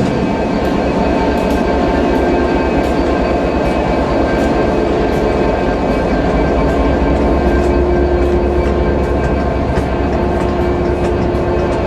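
Diesel locomotive engine, an EMD 710 two-stroke V12 as fitted to both class 66 and class 67, running steadily with a constant low rumble and hum.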